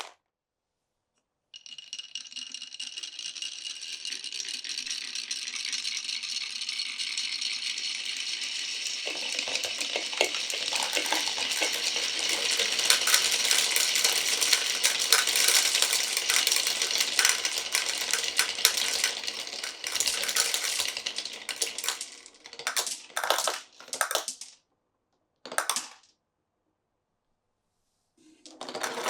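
Many glass marbles rolling and clattering down a marble run track: a dense, continuous rattle of clicks. It starts about a second and a half in, grows fuller and louder through the middle, then breaks up into a few short bursts of clatter as the last marbles run through.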